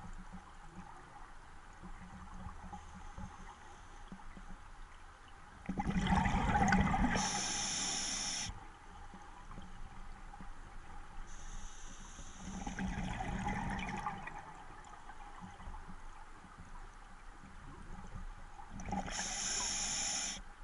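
Scuba diver breathing through a regulator underwater: three breaths about six to seven seconds apart, each a loud rush of hiss and bubbling, the first the loudest, over a low steady background.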